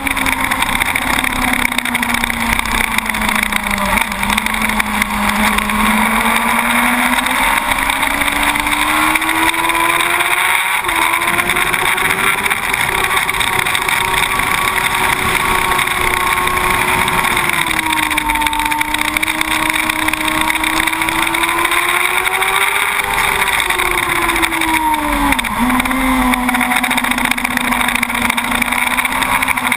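2006 Yamaha YZF-R1 SP's inline-four engine running hard on track, heard from a camera mounted behind the windscreen. Its pitch rises and falls with the throttle, with short breaks around ten seconds in and again near the end, over steady wind rush.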